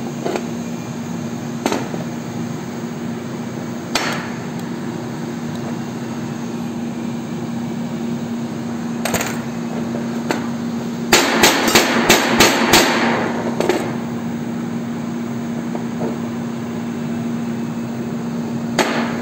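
Sharp metal knocks and clanks of a welded carbon steel piece being handled and struck against a steel worktable, a few single knocks spread out and a quick run of about six strikes near the middle, over a steady machine hum.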